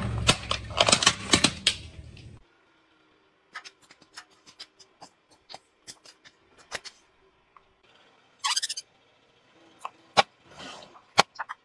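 Car tyre rolling over and crushing plastic toys and bottles. Dense cracking and crunching of plastic over a low rumble for about the first two seconds, then after a sudden cut scattered sharp snaps and pops with quiet between them, and a brief hiss about eight and a half seconds in.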